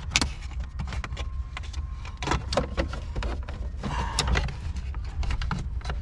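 Plastic steering-column shroud being handled and pushed into place around the ignition lock cylinder: a string of irregular small clicks and knocks, over a steady low rumble.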